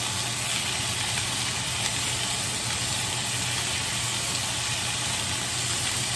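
Bacon strips sizzling in a screaming-hot cast iron skillet, a steady hiss with a couple of small pops, over a low steady hum. The pan is hot enough to be smoking.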